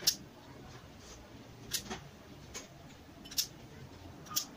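Five short, sharp clicks spread over about four and a half seconds, the first the loudest, as the BoXin BoX-8089 clipper's blade-length adjuster is stepped from one setting to the next.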